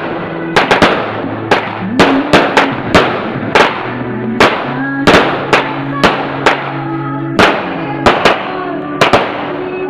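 Fireworks going off: a string of sharp, separate bangs at uneven intervals, about two or three a second, with no pause through the whole stretch.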